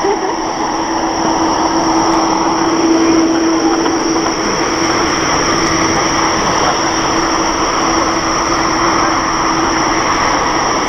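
Jet airliner's engines at takeoff power as it climbs out, a steady roar with a constant hum running through it.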